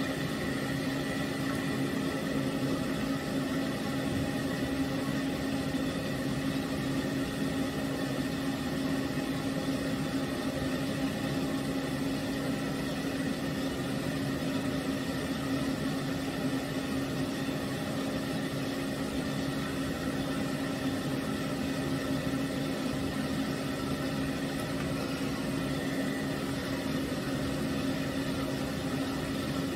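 Floor-standing pet grooming dryer running steadily, blowing air through its hose nozzle. It makes an even motor hum with a constant low tone and a fainter high whine over the rush of air.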